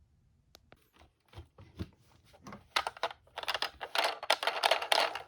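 Die-cast toy cars clattering: a few scattered clicks at first, then a dense rattle of small hard knocks through the last two and a half seconds.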